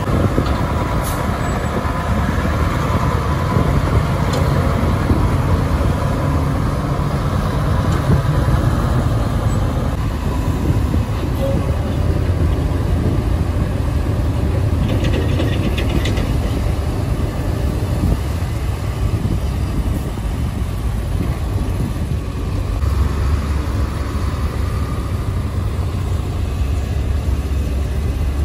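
Diesel engines of excavators and dump trucks running, a steady low rumble.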